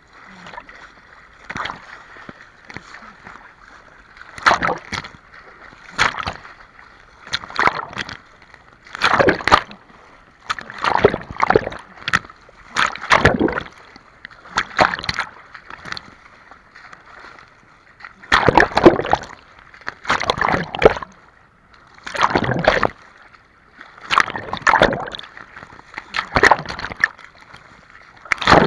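Seawater splashing in a steady rhythm of strokes, one about every one and a half to two seconds, with a short pause about two thirds of the way through.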